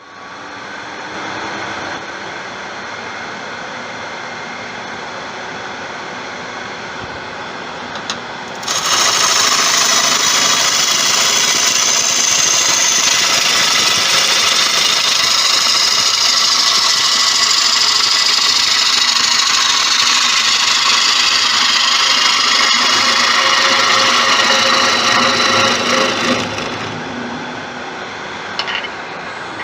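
Wood lathe spinning a large tiger wood bowl blank. About nine seconds in, a gouge bites into the wood, and a loud, steady cutting hiss of shavings runs until a few seconds before the end, when only the running lathe is left.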